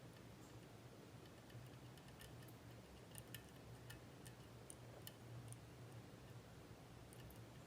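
Faint, irregular clicks and ticks of a lock pick working the pins of a Mul-T-Lock Junior pin-tumbler lock under tension, over a steady low hum.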